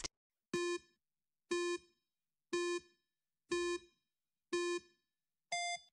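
Countdown timer sound effect: five short beeps on one pitch, one a second, then a single higher beep near the end that marks time up.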